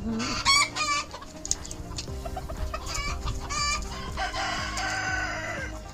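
Backyard chickens clucking in short pitched calls, with one longer drawn-out call about four seconds in.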